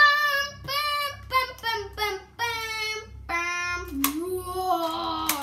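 A young boy's wordless vocalizing in a series of high held notes: several short ones, then two longer, lower ones from a little past halfway.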